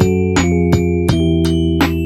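Background music: a bright mallet or keyboard melody over held chords, with notes struck evenly about three times a second.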